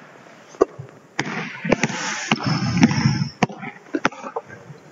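Basketball dribbled on a hardwood gym floor: about seven sharp echoing bounces, evenly spaced a little over half a second apart, with a brief high squeak near the middle.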